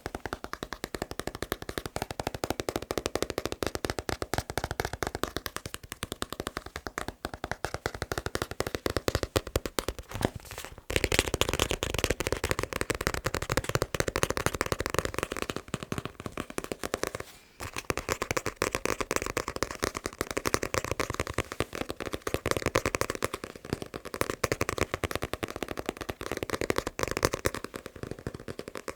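Fast, continuous tapping on a manga book, a dense patter of quick clicks that breaks off briefly twice, about ten and seventeen seconds in.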